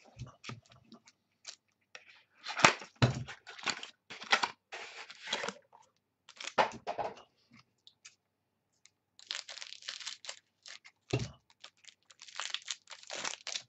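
Trading-card pack wrappers being torn open and crinkled, and cards handled and shuffled, in irregular clusters of short rustling bursts with a couple of sharper knocks.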